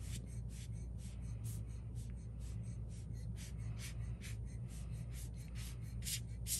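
Rubber air-blower bulb squeezed over and over, each squeeze giving a short puff of hissing air, about three a second, a couple of stronger puffs near the end; the air is blowing wet alcohol ink around on the paper. A steady low hum runs underneath.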